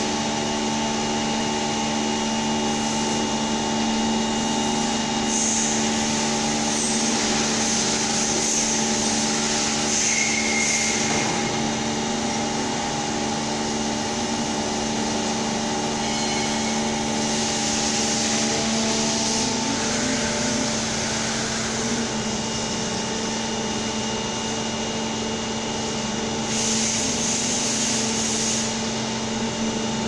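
Steady hum of vacuum-coating plant machinery running: a constant drone holding several steady tones, with short spells of hiss now and then.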